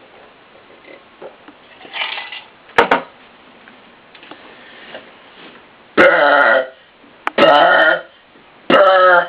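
A man burping loudly on purpose: three long, loud burps about a second and a half apart in the second half, each lasting over half a second, after a shorter sound and a sharp click a few seconds earlier.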